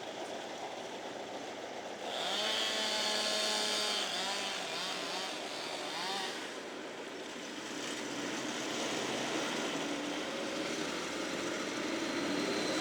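A chainsaw some way off revs up about two seconds in, holds at speed with its pitch wavering up and down, then drops back and builds again near the end, over a steady mechanical hum.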